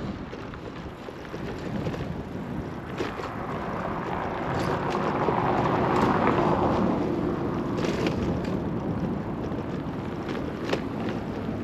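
Road traffic going by on a nearby road, a steady rush in which one vehicle swells louder around the middle and fades away.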